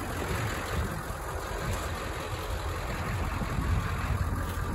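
Ford 7.3 Powerstroke V8 turbo-diesel idling steadily.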